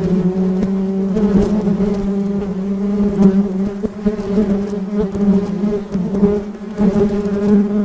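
A bee buzzing in a steady drone, its pitch wavering slightly.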